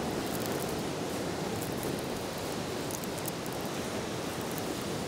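Heavy ocean surf breaking on a rocky, stony beach: a steady, unbroken wash of waves.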